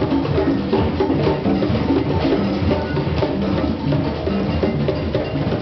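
Conga drum played by hand in a fast, steady rhythm of open tones and slaps, with other hand drums of a drum circle playing along.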